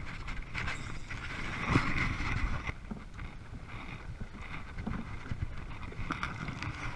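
Wind buffeting the microphone and choppy waves splashing against a kayak's hull, with a few sharp knocks.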